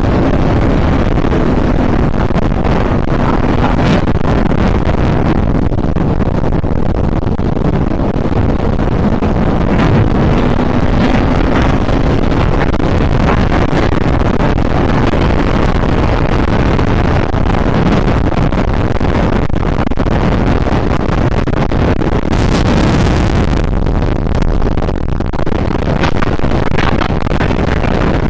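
Donzi 38 ZRC performance boat running at speed, a steady engine hum buried under heavy wind noise on the microphone.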